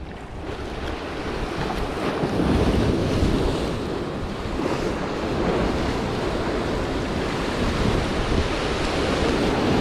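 Ocean surf breaking and washing over jetty rocks, a steady rush that swells over the first few seconds, with wind buffeting the microphone.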